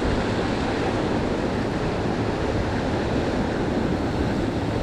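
Steady rush of sea surf breaking on rocks, with wind on the microphone.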